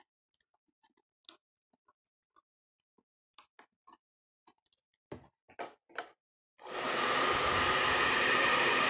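Small clicks and taps as the cracked iPad glass is handled, a few louder ones about five to six seconds in. Then a hot-air blower switches on and runs with a steady rushing noise, used to heat the screen and soften its adhesive.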